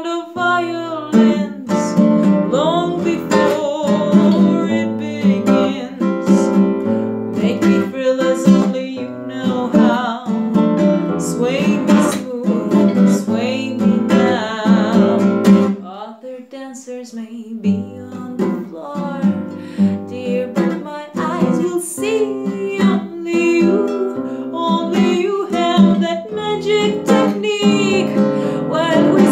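A woman singing while strumming chords on a nylon-string classical guitar, briefly softer just past the middle.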